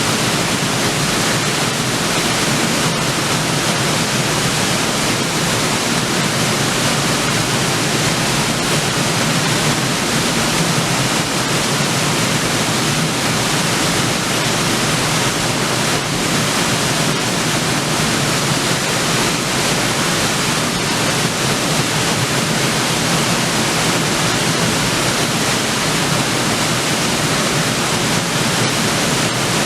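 River waterfall: water pouring over a drop and crashing into the pool below as a steady, loud, even rush.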